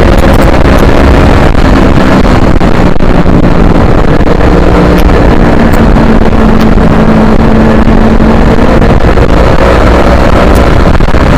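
Yamaha R3's 321 cc parallel-twin engine running hard on track, buried in heavy wind noise on an onboard microphone and recorded close to clipping. The engine note holds steady for several seconds in the middle, then changes pitch near the end.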